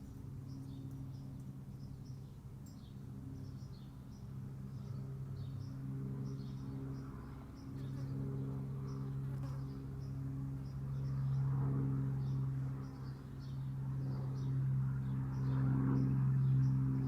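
Insects chirping in short, rapid, repeated pulses over a steady low machine hum, which gets somewhat louder about halfway through.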